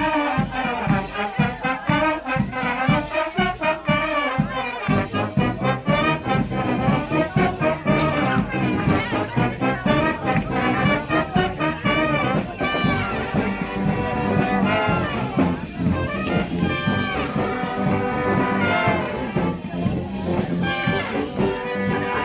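Street brass band playing live: trumpets and trombones over a steady beat, the low end filling out about five seconds in.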